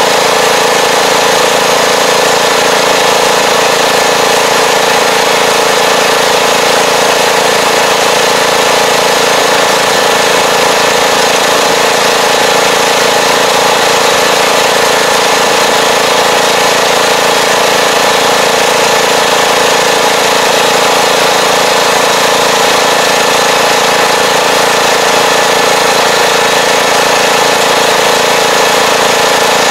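Farm tractor's diesel engine running steadily as the tractor drives across a field pulling a fertilizer applicator, loud and even throughout.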